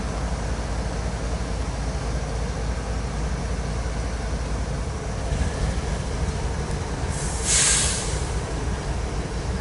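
CSX diesel locomotives standing and running with a steady low rumble. About seven seconds in, a short, loud hiss of air cuts in and stops within a second.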